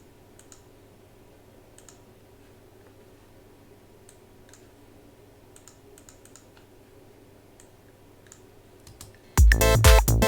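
Faint, sparse computer keyboard clicks over a low hum, then about nine seconds in an electronic dance drum groove with bass starts playing back loudly.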